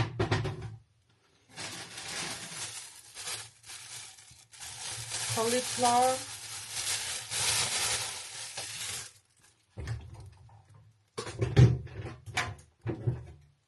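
Plastic grocery bag and packaging rustling and crinkling for several seconds while groceries are unpacked, followed by a few light knocks as items are set down.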